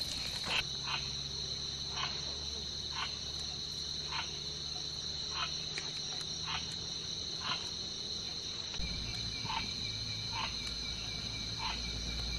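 Crickets chirping at night in a steady high-pitched trill, with short sharp clicks about once a second over it.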